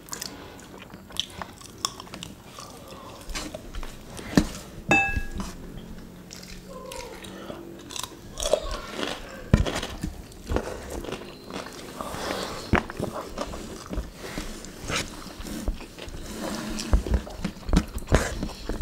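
Chewing and eating sounds of people eating rice and fried curry chicken by hand: scattered short smacks and clicks as food is chewed and fingers pick rice from a metal tray.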